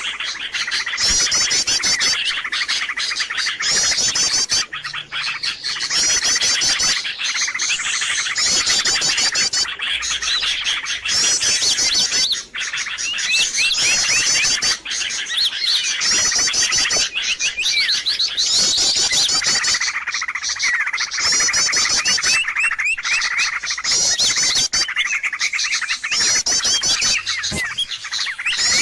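A dense chorus of many small birds chirping and twittering without pause, with rapid high trills repeating every second or two. This is a busy bird-lure call recording meant to draw wild birds in.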